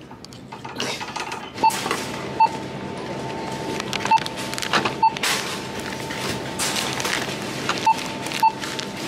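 Checkout barcode scanner beeping as items are scanned: six short, identical beeps, roughly in pairs, over the rustle and knock of packages and plastic bags being handled.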